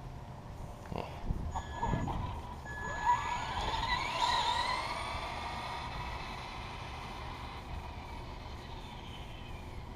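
Electric motor and drivetrain of a Traxxas Slash 2WD RC truck whining, with a few knocks early on. The whine rises with a burst of throttle about three to four seconds in, then slowly falls away and fades. The driver suspects the battery pack is nearly flat.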